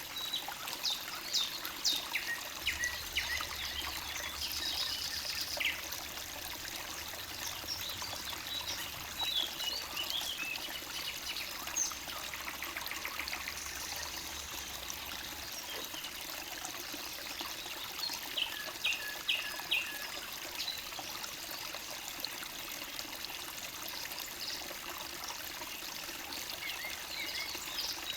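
Forest stream babbling and trickling steadily, with songbirds singing in short phrases now and then over it.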